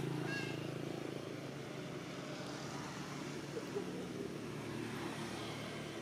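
A motor engine humming steadily, low and even, with a couple of brief faint high chirps just after the start.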